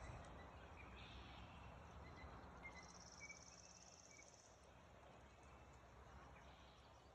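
Near silence: faint outdoor ambience, with a brief faint high trill about three seconds in.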